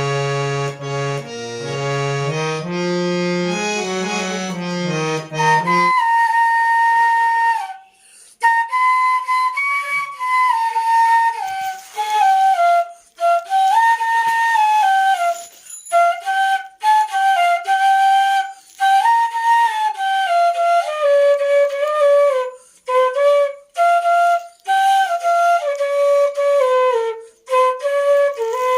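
Background music: sustained chords for about the first six seconds, then a solo flute melody in short phrases with brief pauses between them.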